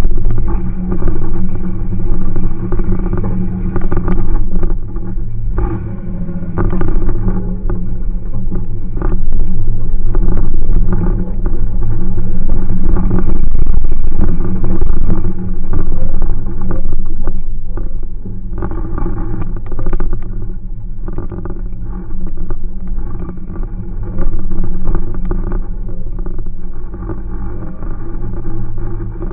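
Jeep Cherokee engine pulling and revving up and down off-road, heard from inside the cab, with occasional knocks and mud spattering against the windshield.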